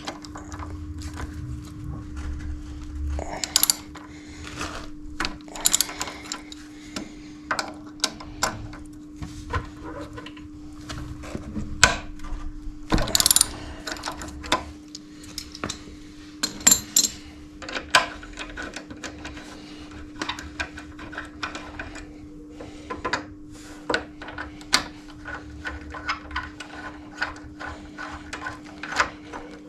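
Ratchet wrench clicking and metal tools clinking while the front brake caliper mounting bolts of a Suzuki GSX-R600 are undone, with irregular sharp clicks over a steady low hum.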